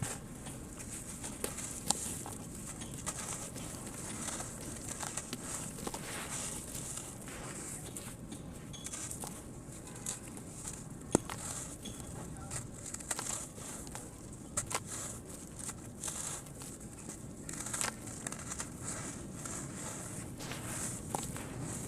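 Sand cement crumbling in water: a run of small cracks and crumbly clicks over a faint hiss, with a sharper crack about halfway through.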